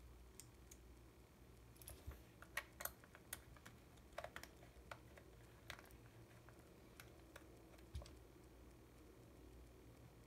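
Faint, sharp little clicks and taps of a precision screwdriver and fingers handling the plastic body of a Yashica T4 (Kyocera Slim T) compact film camera while its front-plate screws are worked. The clicks come in an irregular scatter, thickest in the middle, with one soft thud about eight seconds in.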